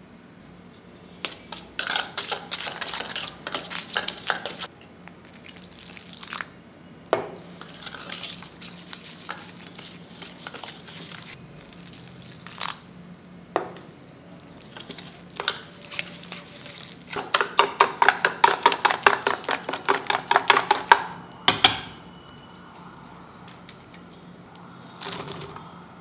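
A wire whisk beating flour and spices into a batter in a stainless-steel bowl, its wires clinking fast against the metal in several bursts. The longest and loudest burst comes near the end, at about six strokes a second, followed by a single sharp knock.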